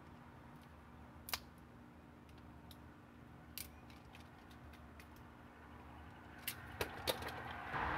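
Sharp clicks of a crimping tool closing an RJ45 plug onto Ethernet cable: one loud click about a second in, another a couple of seconds later, and three quick clicks near the end, over a faint steady hum.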